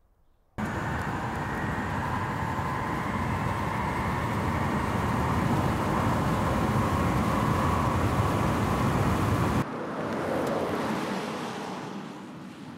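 Mercedes-Benz EQC electric SUV driving at speed: steady tyre-and-wind road noise with a faint, slightly rising whine. It starts suddenly about half a second in and cuts off abruptly just before 10 s, followed by a quieter driving noise that fades away.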